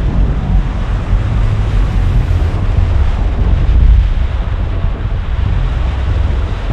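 Whitewater rapids rushing and splashing around a canoe as it runs through standing waves, with heavy wind buffeting on the microphone. The splashing surges loudest about four seconds in.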